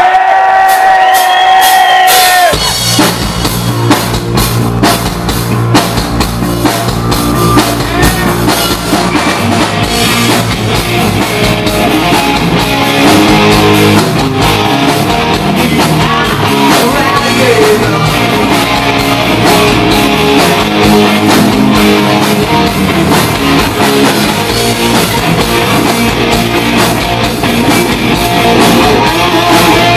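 A rock band playing live: a single held note for about two seconds, then drums, bass and electric guitars come in together and play on loudly.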